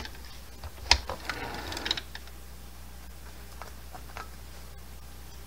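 Home sewing machine stitching a blanket-stitch appliqué, with a sharp click about a second in. It stops after about two seconds, leaving a low steady hum and a few faint ticks.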